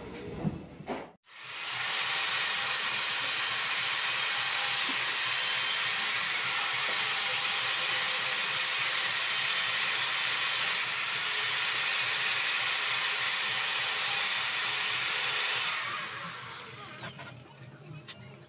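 Electric hand drill running steadily as it bores into the wooden stock of a homemade airgun: a loud, even, hissing drone that starts abruptly a little over a second in, lasts about fourteen seconds and tails off near the end.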